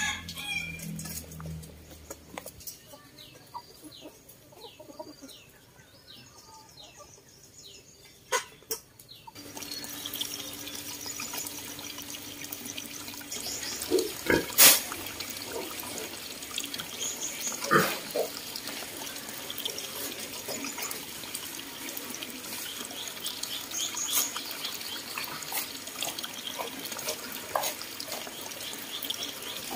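Chickens clucking briefly, then a run of quick, high, repeated chirps. From about ten seconds in there is a steady rush of running water, broken by a few sharp knocks.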